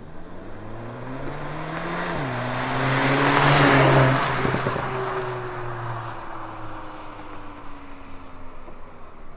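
2021 Volkswagen Golf GTI Mk8's turbocharged 2.0-litre four-cylinder accelerating past on its stock exhaust. The engine pitch climbs, drops suddenly at an upshift about two seconds in, and climbs again. It is loudest as the car goes by around four seconds in, then the note falls away as it drives off.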